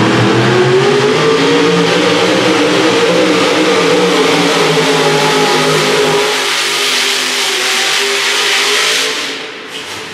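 Super modified four-wheel-drive pulling truck's engine running at full throttle under the load of the sled, its pitch climbing briefly and then holding high. About six seconds in the deeper part of the sound drops away, and the engine eases off and fades near the end as the run finishes.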